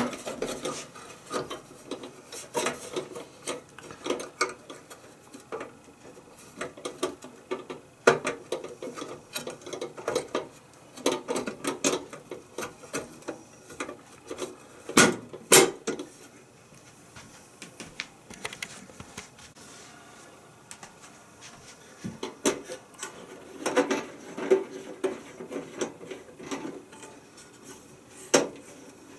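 Parts of an electric contact grill being handled: the removable grooved grill plates and the hinged lid frame clicking, knocking and rubbing as they are moved and adjusted, with two sharp knocks about halfway through.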